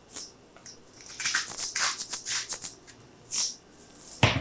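Salt shaker being shaken over a pan of sautéing onions: several short, irregular rattling shakes, with a louder knock near the end.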